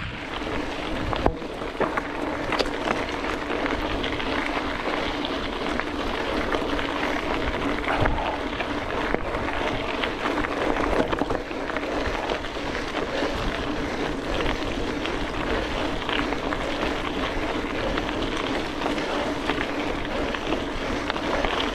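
Gravel bike tyres rolling over a gravel track: a steady rumble and crunch, with many small clicks and knocks.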